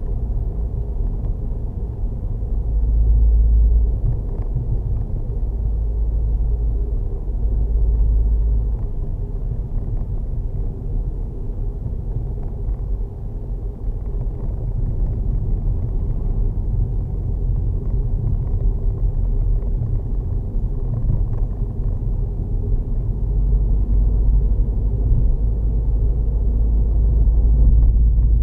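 Turbocharged four-cylinder engine of a 2004 Skoda Octavia 1.8 20v turbo running, with a heavy low rumble.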